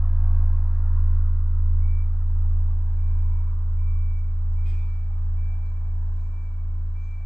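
A deep, steady low drone, slowly fading, with a faint thin high tone that comes and goes above it from about two seconds in.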